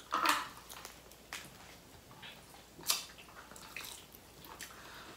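Close-miked eating: chewing and wet mouth smacks as fast food is eaten. There are a handful of short, sharp smacks, the loudest about three seconds in.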